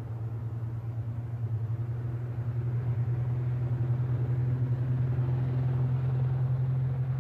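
A late-1930s BMW car's straight-six engine running at a steady pitch as the car approaches, growing gradually louder.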